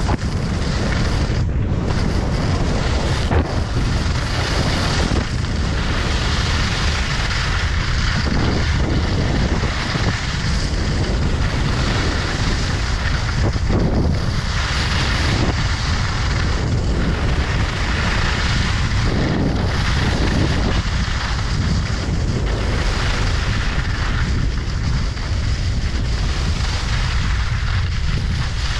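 Wind buffeting the camera's microphone during a fast ski run, a steady low rumble, with the hiss of skis carving across packed snow swelling and fading with each turn.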